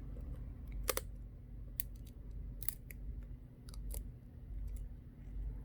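Small sharp clicks and taps, about five spread over a few seconds, as a charging port part is handled and fitted into a phone's frame, over a low steady hum.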